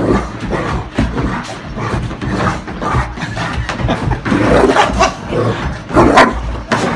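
Excited dogs barking and vocalizing, with louder bursts about four and a half seconds and six seconds in.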